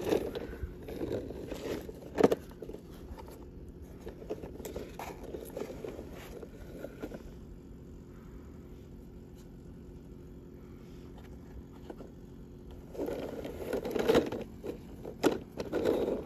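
Toy cars being handled and scraped across a surface, in short bursts at the start and again near the end, with a few sharp clicks and knocks. A faint steady hum sits underneath.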